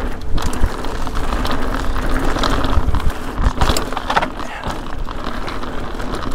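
Mountain bike descending a dry, rocky dirt trail at speed: tyres rolling and crunching over dirt and stones under a steady low rumble, with scattered sharp clicks and knocks from the bike over bumps.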